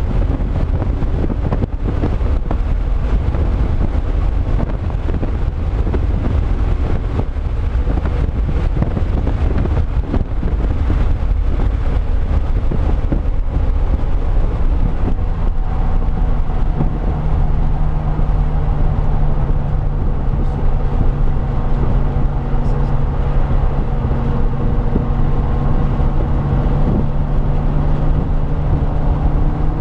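2005 Pontiac GTO's LS2 V8 running hard at track speed, heard from inside the car over heavy road and wind noise. About halfway through, the engine settles into a steady drone at constant revs.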